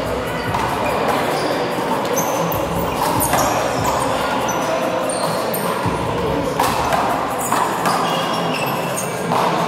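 Handball rally: the rubber ball smacks sharply off the wall and players' hands several times, with sneakers squeaking briefly on the court floor in between.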